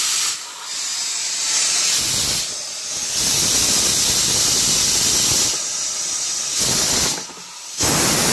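Donkin marine steam steering engine under steam, giving a loud hiss of steam that stops and starts again about three times. The engine runs only while its hand-turned control wheel holds the valve off centre, and stops as the follow-up screw brings the valve back to centre and cuts off the steam.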